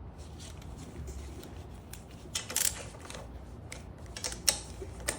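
Hand tools being handled, giving short metallic clicks and clinks in three brief clusters, about two and a half, four and five seconds in.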